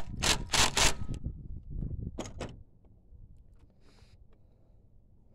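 Cordless impact driver hammering in short bursts as it tightens the valve cover bolt on a Honda GX engine: a run of about a second, then two quick blips a little over two seconds in.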